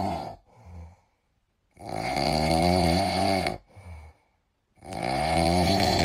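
French bulldog snoring in its sleep: long rasping snores about every three seconds, each followed by a short softer breath.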